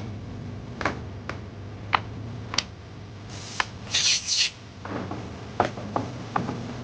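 Hands working on a laptop: scattered light clicks and taps, with two short rubbing, scraping bursts a little past the middle, over a steady low hum.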